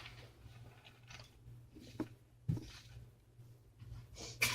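Faint handling noises from taking apart a small speaker: a few light clicks and knocks over a low steady hum.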